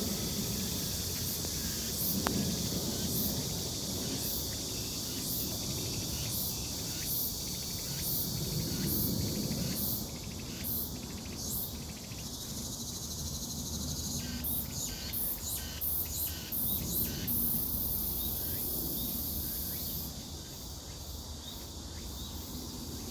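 Chorus of forest insects: a steady high-pitched buzz with regular short chirps a little more than once a second, a faster run of chirps in the middle, and the buzz dropping away near the end.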